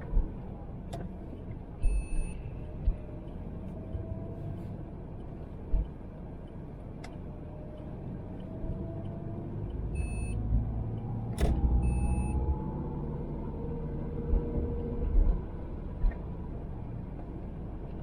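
Great Wall Hover H3 heard from inside the cabin while driving: steady engine and road rumble with a thin whine that slowly rises in pitch, several seconds at a time. Three short electronic beeps sound, about 2, 10 and 12 seconds in, and a few light knocks cut through.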